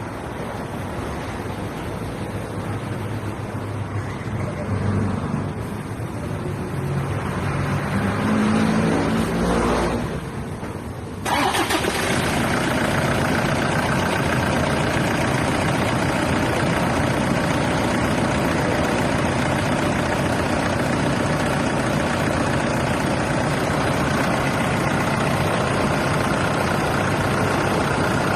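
Toyota Innova engine running, with its pitch rising over the first ten seconds. About eleven seconds in, a loud, steady, rushing noise sets in suddenly and lasts to the end, as of the idling engine and its fans heard close up.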